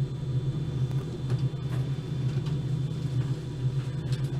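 Printer running through a print job: a steady low motor hum with faint scattered ticks.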